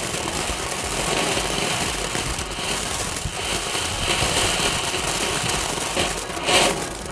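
Green Star, a small category 1 ground fountain, burning with a steady hiss of sparks while throwing up small stars, with a short louder burst about six and a half seconds in.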